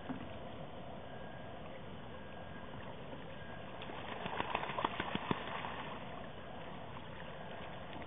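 Common loon bathing: a flurry of wing-beats and splashes on the water for about a second and a half, about four seconds in.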